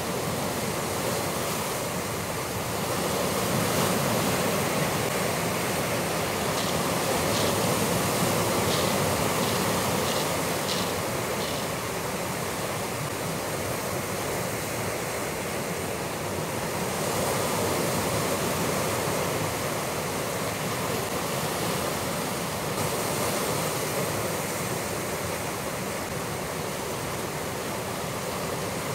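Sea surf breaking against rocks: a steady rush that swells and eases every few seconds, with a few faint high ticks about a third of the way in.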